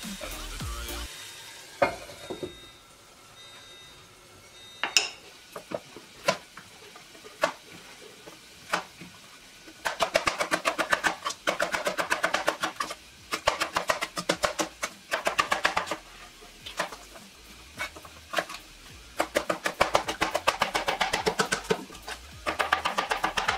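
Kitchen knife chopping green and red peppers on a plastic cutting board: scattered single cuts at first, then fast, even runs of knife strokes hitting the board, several a second, with a pause in between.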